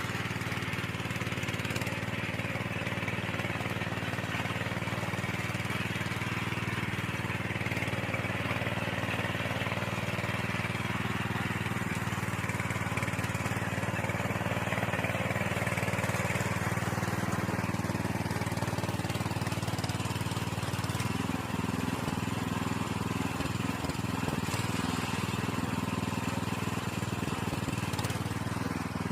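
Small engine of a motorized soil tiller running steadily under load as it works the ground.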